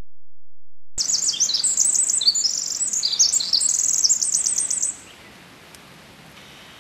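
Pacific wren (the western form of the winter wren) singing: a rapid, tumbling run of high trills and notes, starting about a second in and lasting about four seconds before it stops abruptly.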